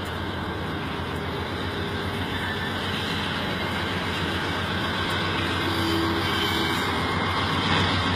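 Three Union Pacific diesel-electric locomotives approaching, their diesel engines running with a steady drone that grows gradually louder as they come closer.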